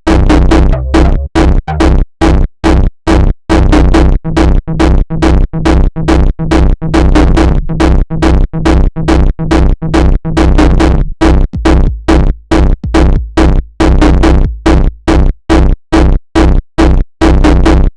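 Electronic jumpstyle beat: a heavy drum-machine kick with deep bass pounds at a fast, steady tempo of about two to three hits a second, with synthesizer sounds between the hits.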